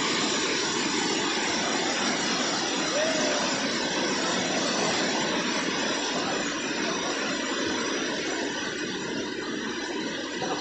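Steady rushing of a waterfall, an even wash of noise that eases off slightly toward the end.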